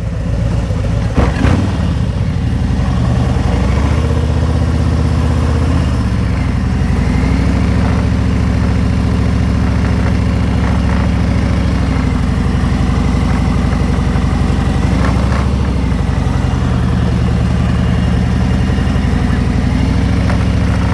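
Harley-Davidson Road Glide Special's V-twin engine running on the move, its pitch rising and falling several times as the rider throttles through a slow U-turn and rides off.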